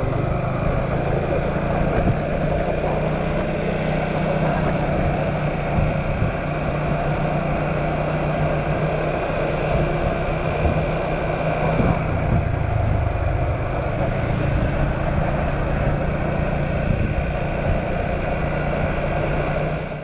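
Honda Super Cub 110's small air-cooled single-cylinder four-stroke engine running steadily under way, with wind and road noise.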